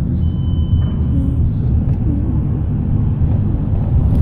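Steady low rumble of car road and engine noise, heard from inside the cabin while driving.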